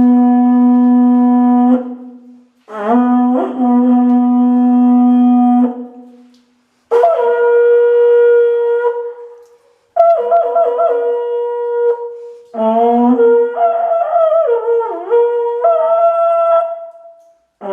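Conch-shell trumpet (horagai) blown in five long, loud blasts. The first two are low notes. The later ones jump to a higher note and waver and bend in pitch.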